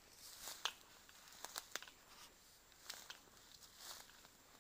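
Faint footsteps crunching through dry leaf litter, about one step a second, each with a few sharp crackles.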